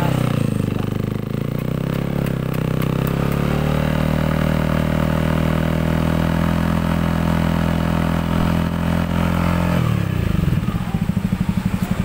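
Yamaha NMAX 155 single-cylinder scooter engine running through an aftermarket stainless-steel F2racing slip-on exhaust. The revs climb a second or two in and hold steady at a raised speed. About ten seconds in they drop back to an idle with a quick, even pulsing.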